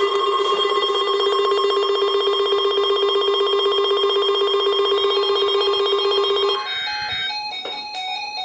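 Electronic alarm of a weather alert radio receiver: a loud, steady, rapidly pulsing buzz that cuts off about six and a half seconds in, followed by a few softer stepped tones.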